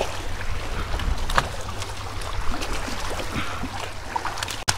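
Wind buffeting the microphone over water sloshing against jetty rocks, with scattered splashes as a large hooked trout thrashes at the water's edge. The sound cuts out for an instant near the end.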